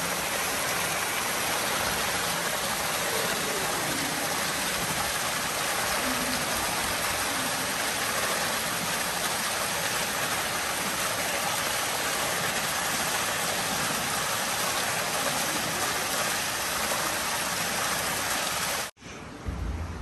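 Steady rush of water pouring and splashing into a pool, a constant hiss that cuts off abruptly near the end.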